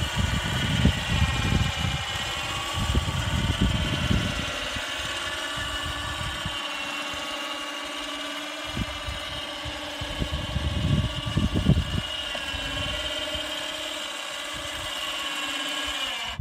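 Electric motor of an ATV-mounted game lift running steadily as it hoists a mule deer carcass, a continuous whine that cuts off abruptly when the switch is released.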